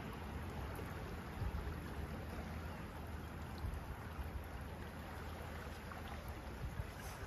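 Rainy outdoor ambience: a steady hiss under a low rumble of wind on the phone's microphone.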